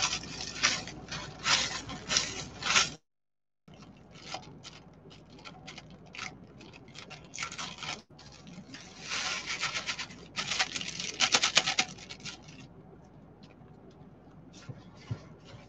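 Plastic bag crinkling as it is handled and shaken, with crushed crumbs rattling inside and pattering out onto meatloaf mix; a dense spell of crackle about nine to twelve seconds in, sparser crackles after, and a brief cut-out of all sound about three seconds in.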